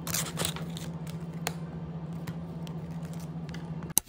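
Long acrylic nails clicking and scraping against small plastic items and plastic wrapping as cards and charms are handled: a short burst of rustling at first, then scattered single clicks. A steady low hum runs underneath.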